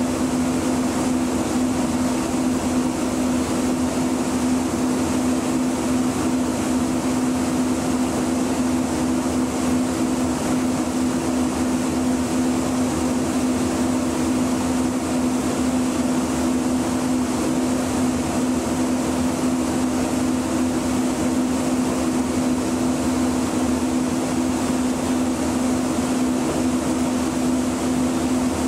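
Steady hum inside the cab of a standing MUNI light-rail vehicle: a constant low drone with a light hiss from the car's onboard equipment, unchanging throughout.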